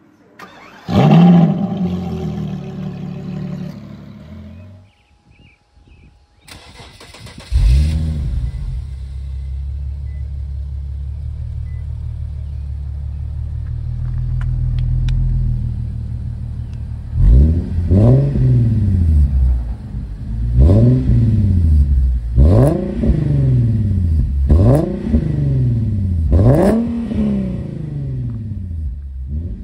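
An engine revs once, then the 2014 Infiniti Q50's 3.7-litre V6 starts with a flare and settles into a steady idle through a Stillen axle-back exhaust. From about halfway on it is revved about five times, roughly two seconds apart, each rev rising and falling back to idle.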